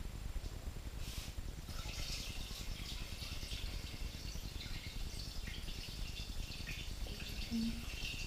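Water poured from a jug into a Thermomix TM5's metal mixing bowl onto the gulasch base of beef and onions. It is a steady splashing stream that begins about a second in.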